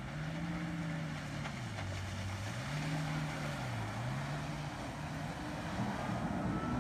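Jet ski engine running out on the water, its pitch dipping and climbing back twice as it carves through turns.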